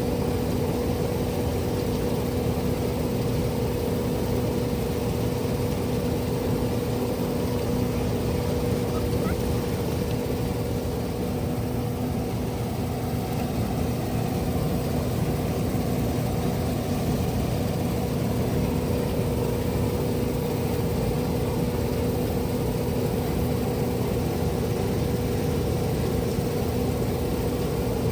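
Case IH Axial-Flow 9250 combine harvester running steadily at work in wheat: a constant machinery drone with a steady low hum and no change in engine speed.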